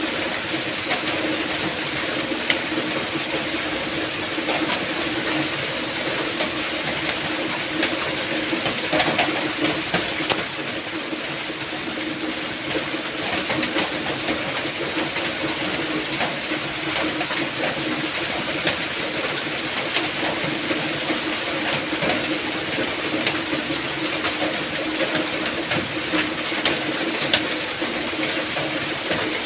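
Steady rain, with sharper drops ticking here and there, over a faint steady low hum.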